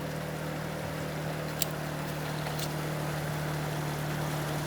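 A motor running with a steady low hum, with two sharp clicks about a second apart near the middle.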